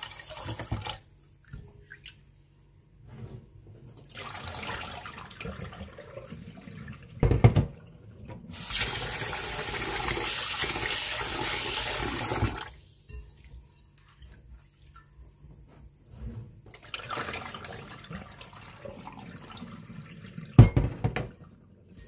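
Kitchen tap running into a glass bowl of sticky rice in a stainless steel sink while hands swish and rinse the rice. The water runs hardest for about four seconds in the middle, with quieter spells of swishing between, and there are two loud thumps, one about a third of the way in and one near the end.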